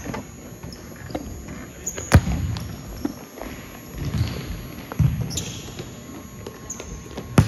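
Thuds of an indoor soccer ball being kicked and bouncing during play, echoing in a large hall; the sharpest and loudest comes about two seconds in, another around five seconds.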